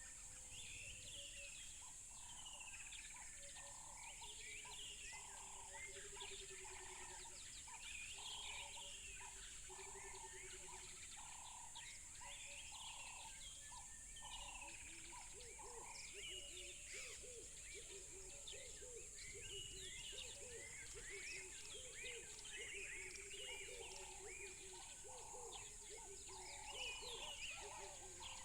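Several birds chirping and calling together, with short high chirps throughout. A lower call repeats steadily about every two-thirds of a second, drops out around the middle, and returns near the end. A constant high hiss runs underneath.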